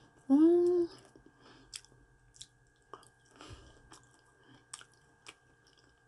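A person chewing a mouthful of boiled, cubed potato: soft scattered clicks and smacks of the mouth. A brief hummed voice sound about half a second in is the loudest part.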